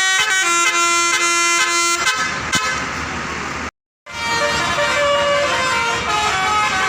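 Indonesian bus 'telolet' multi-tone air horn playing a tune of stepped notes. About four seconds in the sound cuts off completely for a moment, and then the horn tones sound again.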